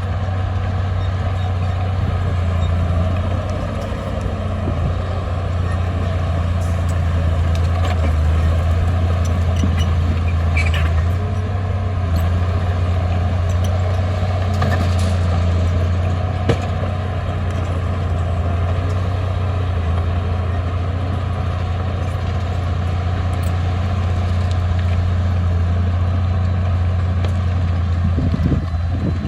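Heavy diesel engine of earthmoving machinery running steadily, with a few light metallic clicks and one sharp knock about sixteen seconds in.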